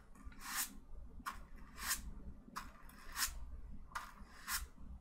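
Faint, quick strokes of a painting tool pulled down across wet oil paint on canvas, a short rasp about three times every two seconds. The paint is dragged straight down to blur it into reflections.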